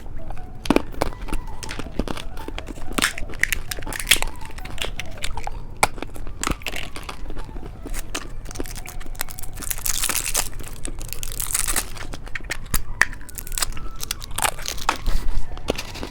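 Plastic candy packaging crinkling and tearing in irregular bursts as candy is unwrapped, with a busier stretch of rustling about two-thirds of the way through.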